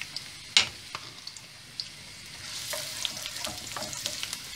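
Sliced onion and garlic sizzling in a little oil in a frying pan as they start to sauté, stirred with a wooden spoon, with scraping and small ticks. There is a sharp knock about half a second in, and the sizzle grows louder about two and a half seconds in.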